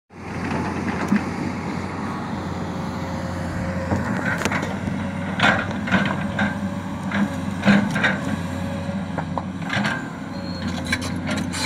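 Komatsu PC200 excavator's diesel engine running steadily, with a series of sharp cracks and snaps as the bucket tears into brush and soil.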